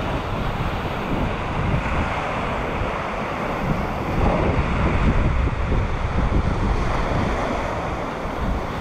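Wind buffeting the microphone over the steady wash of sea waves on the shore, gustier from about four seconds in.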